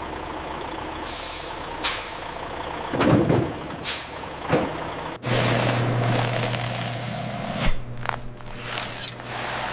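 Loaded truck at a weighbridge, its air brakes giving several short hisses. About halfway through, a steady low engine hum comes in.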